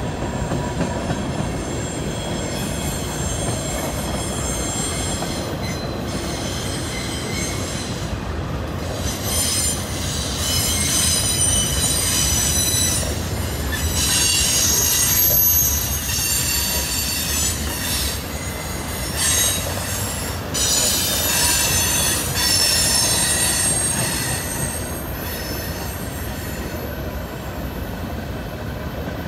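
CSX mixed freight train rolling past: steady rumble of the cars on the rails, with high-pitched wheel squeal that comes and goes and is loudest through the middle.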